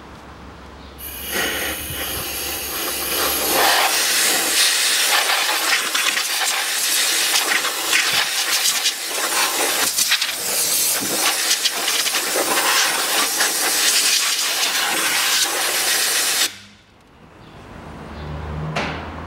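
Compressed-air blow gun hissing as it blows dust out of the air filter housing. The air blast starts about a second in, flutters unevenly as it is aimed around, and cuts off suddenly near the end.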